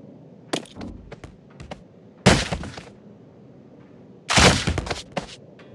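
A few sharp knocks, then two loud crashing impacts about two seconds apart, each lasting about half a second.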